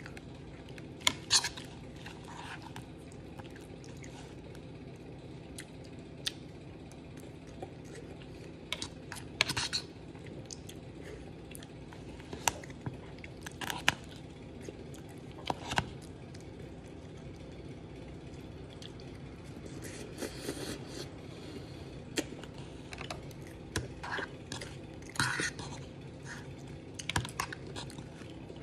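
Metal fork clicking and scraping in a plastic bowl of ice cream and cake, with chewing in between, as short scattered clicks over a steady low background hum.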